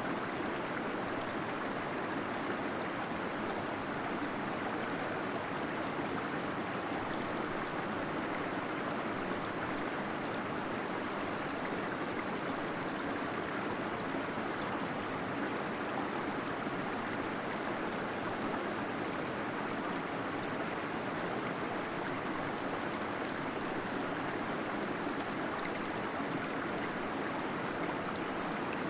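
Small waterfall splashing and gurgling inside a cave, a steady, even rush of water with no changes.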